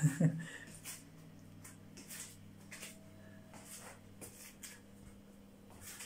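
Faint rustles and light taps as a cat shifts about on a kitchen worktop and is handled close to the phone, over a steady low hum. A brief low voice sound comes right at the start.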